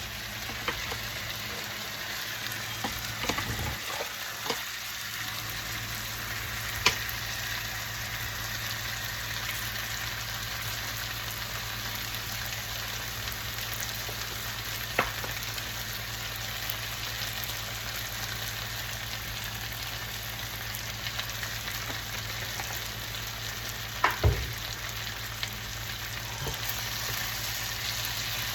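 Diced red-skin potatoes with yellow pepper and red onion frying in a pan: a steady sizzle, with a few sharp clicks, the loudest about a quarter of the way in and again near the end.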